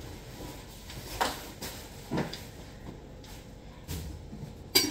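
Scattered knocks and clatter of kitchen work at a counter. Three sharp knocks come about a second in, about two seconds in, and near the end; the last is the loudest.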